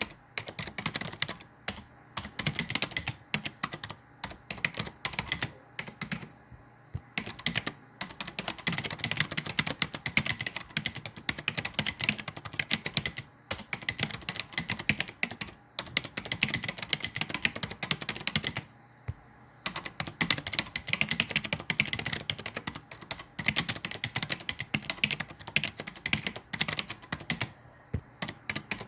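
Continuous fast typing on a computer keyboard, a dense run of key clicks broken by short pauses about every five or six seconds.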